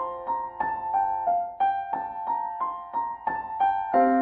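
Background piano music: a steady run of single notes, about three a second, over held chords, with a new, lower chord struck near the end.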